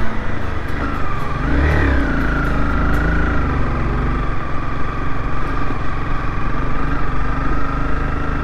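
Honda CBR 250R motorcycle engine running while riding, over a steady low rumble. Its pitch rises and falls briefly about two seconds in, then holds nearly steady.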